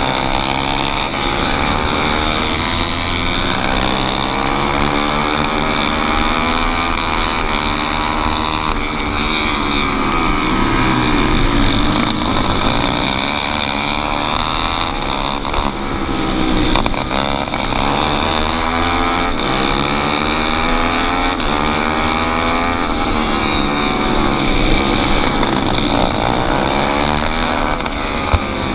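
Four-stroke racing kart engine heard from on board at full race pace. Its pitch rises and falls every few seconds as it revs up along the straights and drops back into the turns.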